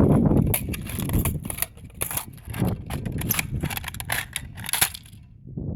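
Plastic body of a toy RC car being forced apart under foot pressure: an irregular run of cracks and snaps, with a loud snap near the end.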